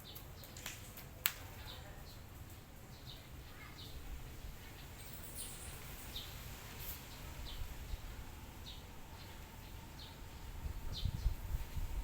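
Small birds chirping: scattered short, high chirps, with a sharp click about a second in and low rumbling near the end.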